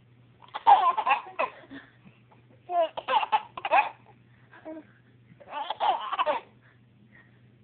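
Baby laughing hard in three loud bursts of belly laughter, with short pauses between.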